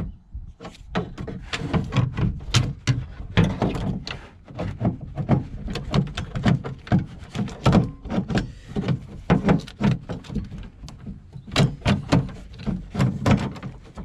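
Irregular knocking and clattering as a door handle carrier mechanism is shuffled into place inside a BMW E53 X5's rear door, the part bumping against the door's inner metal shell.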